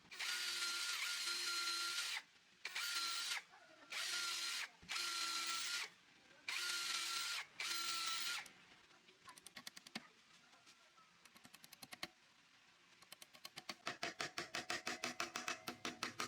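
Power drill running in six short bursts over the first eight seconds or so, then fast trains of clicks that become a steady rapid clicking near the end.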